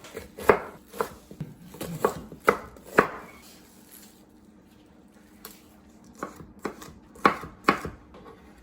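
Kitchen knife chopping kimchi on a cutting board, sharp separate strikes about two a second. The chopping pauses for a couple of seconds midway, then resumes.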